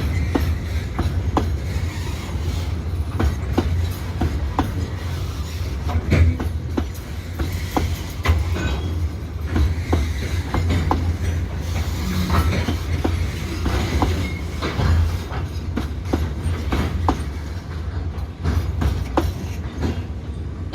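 Freight train of loaded cement hopper wagons rolling past, with a steady low rumble and irregular sharp clacks from the wheels over the rail joints. There are a few faint wheel squeals.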